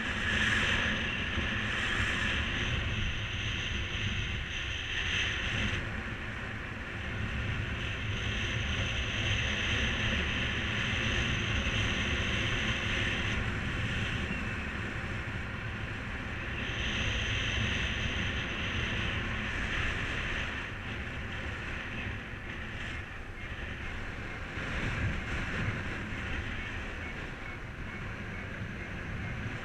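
Wind rushing over the microphone while flying a mini paraglider wing: a steady rush with low buffeting that eases and swells a few times.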